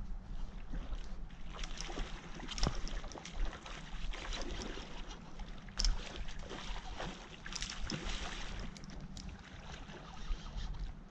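Hooked salmon splashing and thrashing at the surface of the river in irregular bursts, over a steady low wind rumble on the microphone.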